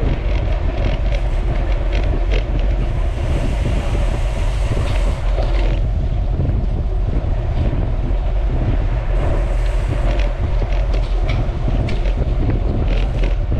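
Heavy wind buffeting on the microphone: a loud, steady low rumble with a hiss over it and many scattered clicks and rattles.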